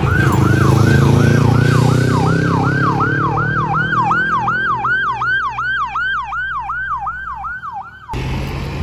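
Police motorcycle siren in a fast yelp, about three sweeps a second, each jumping up and sliding down in pitch, over the low hum of the motorcycle's engine. It cuts off abruptly about eight seconds in.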